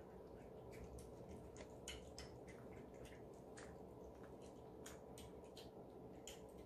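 Cats eating wet food from ceramic bowls: faint, irregular wet clicks and smacks of chewing and licking, several a second.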